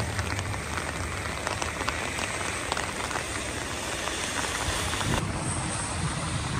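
Steady rain with a fine patter of individual raindrops.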